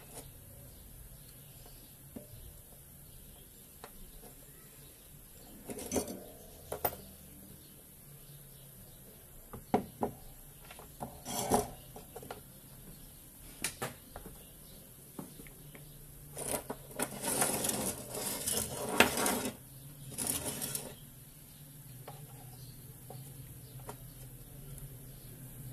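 Sheet-metal ballast box and hand tools being handled on a workbench: scattered clicks and knocks, then a longer stretch of metallic clattering and rattling about two-thirds of the way through.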